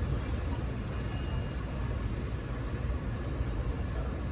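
Steady low hum of a switched-on laser separation machine, its fans running while it stands ready, with no changes in level.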